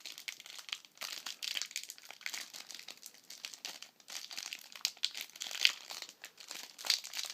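Plastic wrapper on a sealed trading-card pack crinkling and crackling in fits and starts as hands work at opening it, with some tearing.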